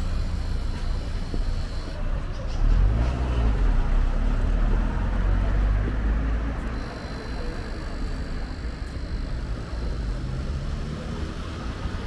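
City street traffic: a motor vehicle's engine rumble swells as it passes close by a few seconds in, then dies back to a steadier, lower traffic noise.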